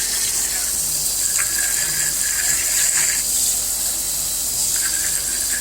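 Tap water running hard and splashing as a dirty vacuum cleaner filter is rinsed under it: a steady rushing hiss, with a faint thin whistle that comes and goes.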